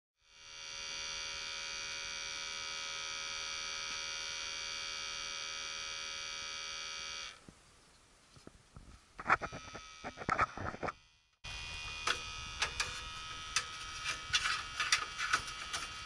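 A steady electric buzz with many overtones for about seven seconds, then clicks and knocks of equipment being handled. After a sudden break about eleven seconds in, a steady hiss with scattered clicks and taps.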